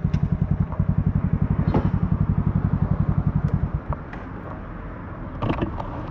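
Aveta Ranger 110's small single-cylinder four-stroke engine idling with an even putter, then cut off about four seconds in as the parked bike is switched off. A few clicks and rustles of handling follow near the end.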